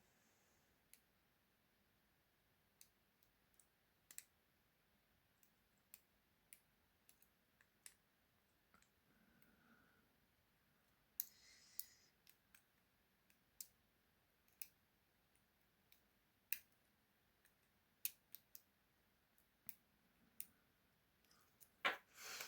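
Faint, irregular clicks of a lock pick and tension wrench working the pins inside a padlock, roughly one a second, with a louder clatter of clicks near the end.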